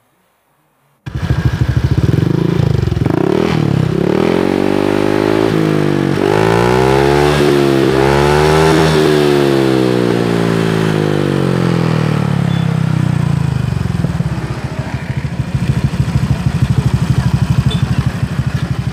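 Motorcycle engine running through an SKR aftermarket racing exhaust with a blue header pipe, starting about a second in. It is revved up and down several times, then settles back to a rapid, even idle.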